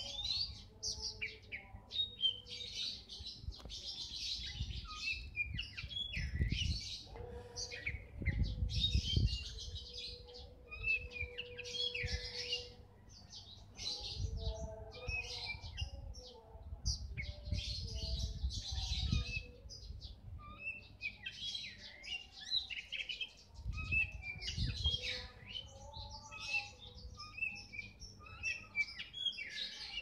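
Caged Oriental magpie-robin (kacer) singing: a long run of varied phrases in short bursts with brief pauses between them. A few low rumbles sit underneath.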